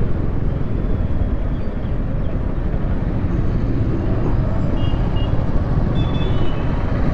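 Honda Grazia scooter riding slowly: a steady low rumble of its small engine and wind on the microphone, with a few faint short high tones from the surrounding street.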